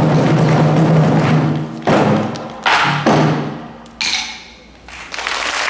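Korean buk barrel drum ensemble playing together, then breaking into a few loud unison strokes about two seconds in, each left to ring out. After a short pause the full playing comes back near the end.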